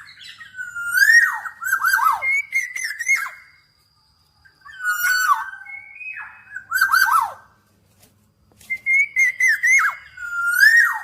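Black-naped oriole singing: three bouts of fluty, whistled phrases that glide up and down, with harsher notes mixed in, separated by short pauses.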